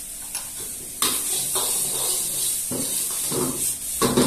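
Vegetables frying in a hot wok over a gas burner, the sizzle jumping up loud about a second in and carrying on. Near the end a metal ladle clatters against the wok as it is tossed.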